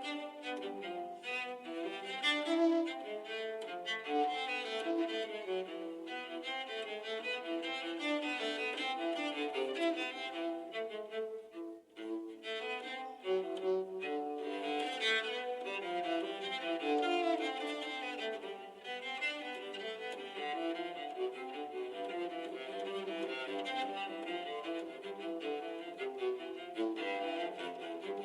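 An LG phone's built-in ringtone or alarm melody played on violin-like bowed strings, running as a continuous tune with a short break about twelve seconds in.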